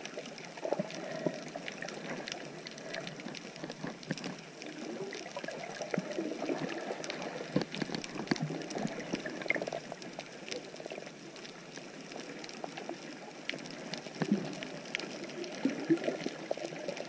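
Underwater sound through a submerged GoPro: water sloshing and gurgling around the camera, with scattered sharp clicks throughout.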